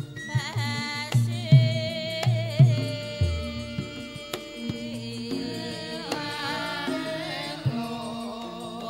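Javanese gamelan music: bronze metallophones ring under a singer's wavering, drawn-out vocal line, and a hand drum gives repeated low strokes, one of them sliding down in pitch about three seconds in.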